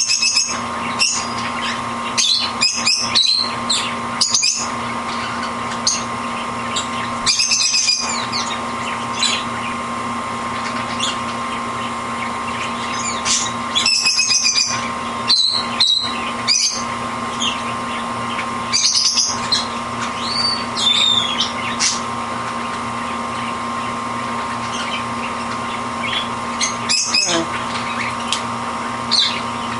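Canary bathing in its water bowl: short, irregular bursts of high chirps and splashing, over a steady electrical hum.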